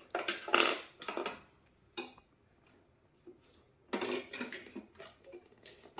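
Dishes and cutlery clattering and clinking as they are handled, in irregular bursts with a single sharp click about two seconds in.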